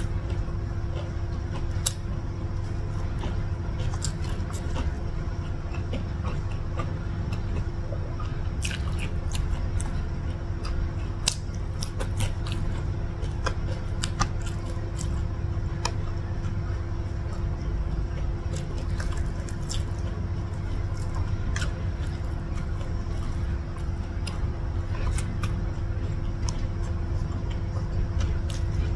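Close-miked eating sounds: chewing with wet squishes and small clicks as rice is mixed and picked up by hand, scattered throughout over a steady low hum.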